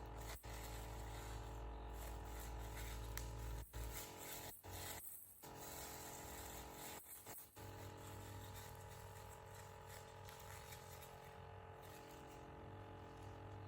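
Soft paper-towel handling and scrunching over a steady electronic hum of several tones, which the uploader thinks is laptop noise. The sound cuts out briefly several times in the first half.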